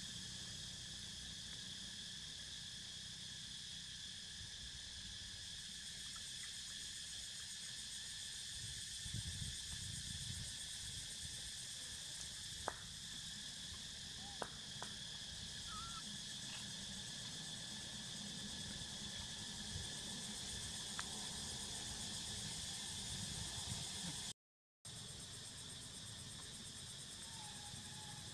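Steady high-pitched insect chorus, with a low rumble underneath, a few faint clicks and short chirps, and a brief dropout about three-quarters of the way through.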